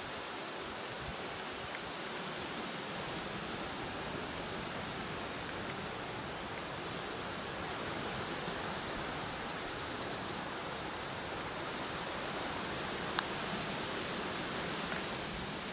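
Steady, even rushing hiss of outdoor ambience, with one sharp click about thirteen seconds in.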